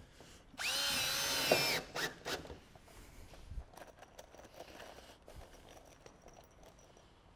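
A cordless drill-driver whirs for about a second, its pitch rising and then holding, and stops with a click as it drives a roofing screw into the corrugated iron sheet. Faint scuffs and light knocks follow.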